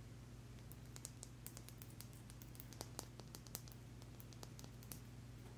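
Faint, irregular clicks and small taps of fingers and fingernails handling a polished sugilite stone close to the microphone, over a steady low hum.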